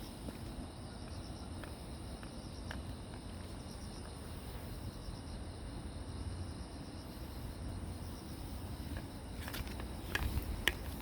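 A chorus of crickets chirping from all sides, a steady high trill, with a few faint clicks near the end.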